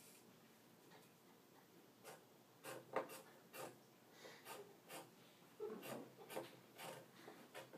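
Scissors snipping through a folded cotton T-shirt to cut a slit: a faint string of short snips, about two a second, starting about two seconds in.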